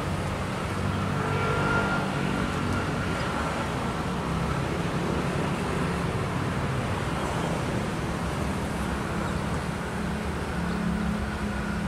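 Steady outdoor traffic noise with a low engine hum.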